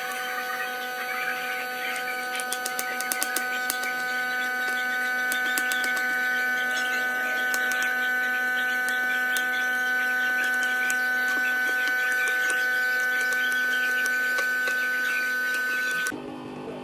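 A small electric motor hums steadily at one constant speed, with crackling and scattered ticks over it. It stops abruptly near the end.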